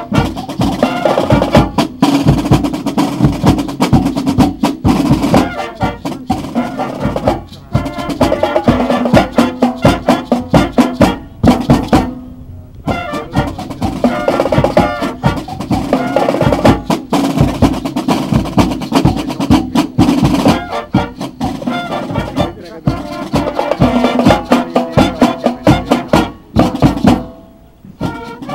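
A marching band of snare drums, bass drum and brass horns playing a lively concert piece, the drums driving a dense rhythm under the horns. The music drops away briefly about twelve seconds in and again near the end.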